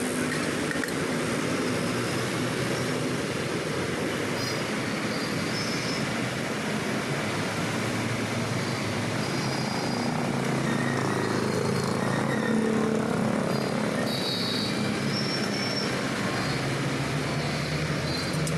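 Steady roadside street noise, a continuous hiss and rumble of traffic, with an engine passing a little louder about two-thirds of the way through.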